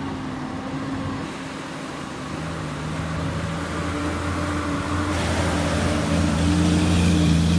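Diesel engine of a road train running steadily as the multi-trailer truck drives through floodwater over a causeway, over a haze of rushing, splashing water. It grows louder as the truck draws near, with a deeper engine note joining about two seconds in.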